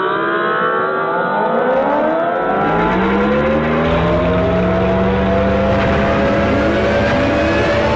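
Synthesized emergency-alert tone: a dense cluster of many gliding pitches that bend and settle into a loud held chord about three seconds in, with a low rumble building underneath.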